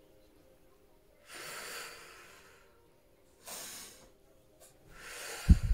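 A woman breathing slowly and deeply into the microphone during a guided breathing exercise, three audible breaths, the first the longest. A short low thump near the end.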